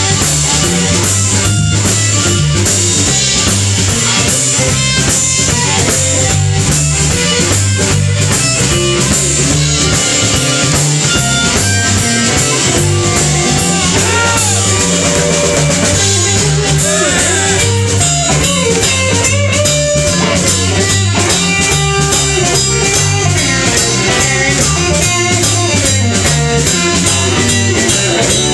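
Live blues band playing an instrumental stretch: electric guitar and bass over a drum kit, with amplified blues harmonica played through a cupped microphone. The harmonica or guitar bends notes up and down in the middle of the stretch.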